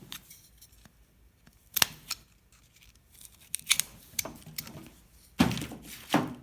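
Hard plastic clicks, snaps and light scrapes from a GM PCM wiring connector and its pieces being handled and pulled apart, with two louder knocks near the end.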